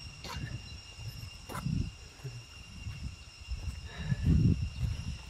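Insects droning with a steady, high, unbroken pitch over a low rumbling noise, with a few faint clicks.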